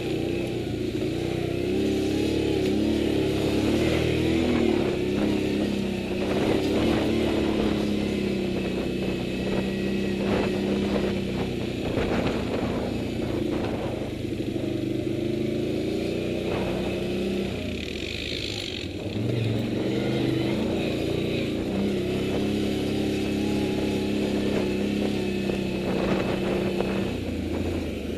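Large touring motorcycle's engine running at low speed, its note rising and falling with the throttle as it rides over a rough grass track, with occasional knocks and rattles from the bumps.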